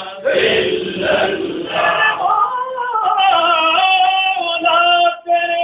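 A man singing a naat, unaccompanied. The first half is a dense, chant-like stretch of voice; then a single male voice holds long, steady notes, with short breaks near the end.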